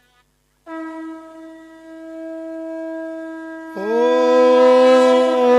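Conch shell (shankha) blown in long held notes, as at the start of a puja: first a steady note, then, nearly four seconds in, a louder, lower blast that slides up in pitch at its start and holds.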